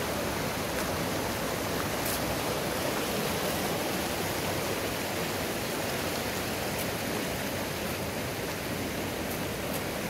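Steady rush of a shallow, rocky mountain river running over rapids.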